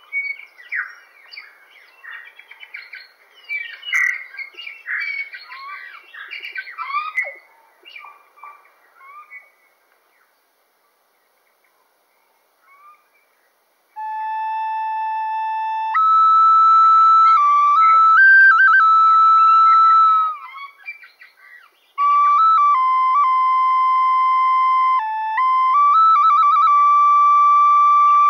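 Birds singing, a busy mix of quick chirps and short whistles, for about the first ten seconds, then a few seconds of quiet. From about fourteen seconds in, a flute-like instrument plays slow, long held notes that step between pitches.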